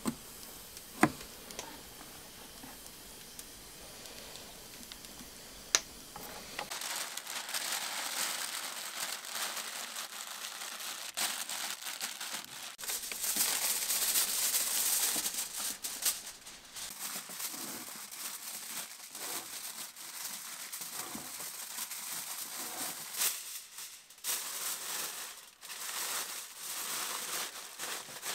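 Aluminium foil crinkling and rustling as it is pulled and pressed around a large joint of meat, starting about seven seconds in and going on in stops and starts. Before it come two sharp clicks.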